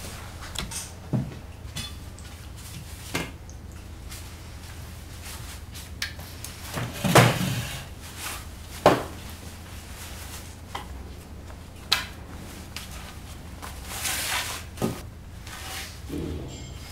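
A person handling a canvas backpack: cloth rustling and a scatter of light knocks and thumps, the two loudest about seven and nine seconds in, over a steady low hum. Near the end, a short off-screen noise.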